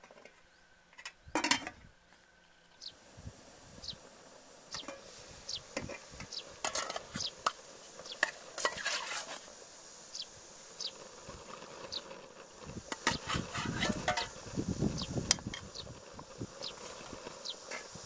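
Scattered clinks and knocks of an aluminium cooking pot and utensils being handled, the loudest about a second and a half in, over many short high chirps.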